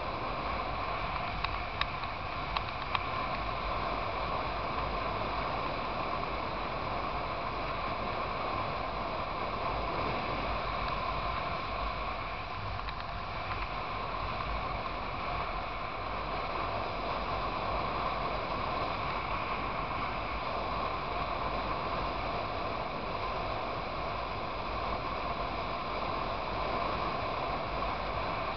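Steady wind rush and engine and road noise from a motorcycle riding at highway speed, with a few brief clicks about two seconds in.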